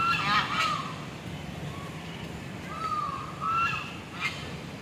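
Domestic ducks and geese calling: a cluster of harsh calls at the start and another about three seconds in.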